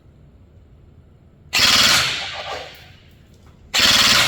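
INF M4 14.5-inch electric airsoft rifle (AEG) firing two short full-auto bursts about two seconds apart, a rapid mechanical rattle of shots. It is being test-fired after a circuit repair for a fault that made it fire by itself on full-auto.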